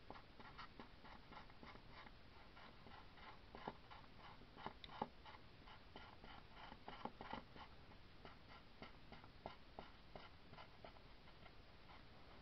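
Oil pastel stick rubbing over T-shirt fabric in quick back-and-forth strokes: a faint scratchy rasp repeating several times a second, with a few louder taps in the middle, easing off near the end.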